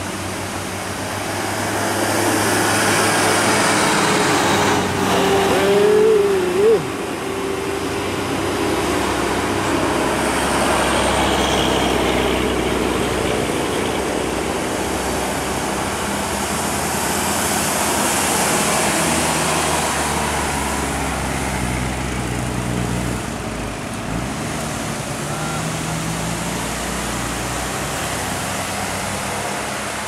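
Tour buses and cars passing close by on a winding road, their engines and tyres swelling and fading as each goes past. A brief wavering tone stands out about six seconds in.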